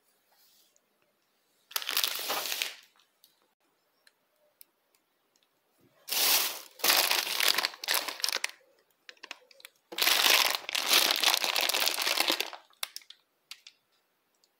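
Clear plastic bags crinkling as they are picked up and handled, in three bursts: about two seconds in, from about six to eight seconds, and from about ten to twelve seconds.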